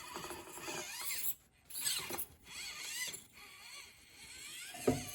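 SCX24 micro RC crawler's Barrage motor and drivetrain whining, the pitch gliding up and down with the throttle, with a short break about a second and a half in. A short thump near the end.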